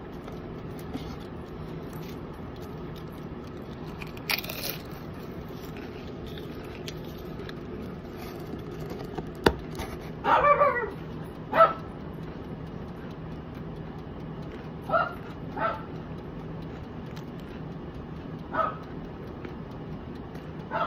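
About six short animal calls, most likely a dog barking, spaced a few seconds apart over a steady low hum; the loudest come about ten seconds in.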